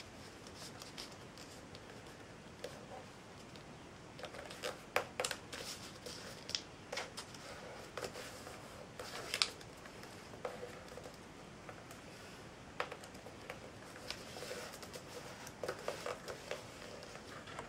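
Paper being folded and creased by hand into a paper airplane: irregular crinkles and short, sharp crackles as fingers press down the folds. The crackles come in clusters about five seconds in, around nine seconds, and again near the end.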